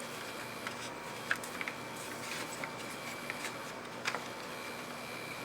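A few light clicks and taps of laser-cut wooden parts as the gear-driven bottom drawer of a wooden mechanical box kit is worked and pulled out, over a faint steady room hiss.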